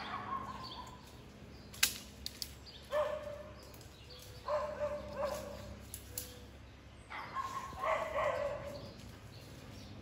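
Boxer dog whining in drawn-out, pitched cries: one falling cry at the start, then three longer whines, the last lasting over a second. There is a sharp snap about two seconds in.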